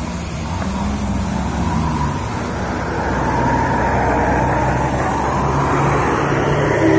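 Diesel engine of a large intercity coach labouring up a steep hill as it passes close, its hum growing louder from about halfway in, over tyre noise on the wet road.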